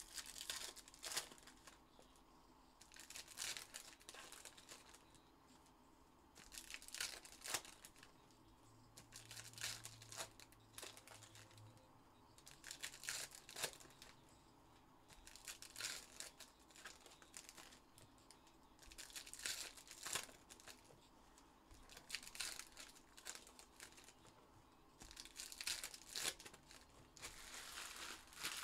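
Trading-card pack wrappers being torn open and crinkled by hand, in short bursts every two to three seconds.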